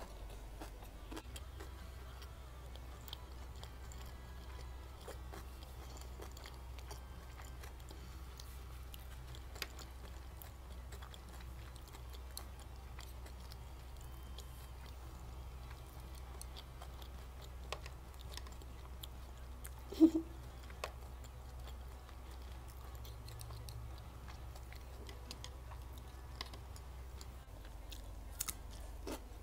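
Chewing of kimbap (seaweed-wrapped rice roll with tuna and cucumber), with small wet mouth clicks over a steady low hum. There is one brief louder sound about twenty seconds in, and a bite into a cucumber stick near the end.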